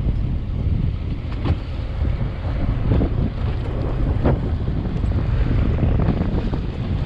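Wind buffeting the microphone on a fishing boat at sea, a steady low rumble with a noisy hiss over it. Three brief knocks come through, about a second and a half, three, and four seconds in.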